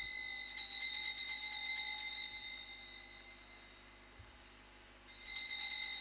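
Altar bells shaken in a rapid jingling peal that marks the elevation of the chalice at the consecration. The ringing fades away by about halfway, then a second peal starts sharply about five seconds in.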